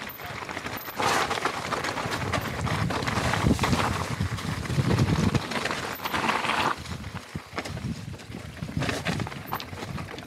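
Mountain bike descending a rocky, loose-stone trail: tyres rolling and crunching over gravel and rocks with a constant clatter of small knocks from the bike. Louder through the rough first part, easing off past the middle.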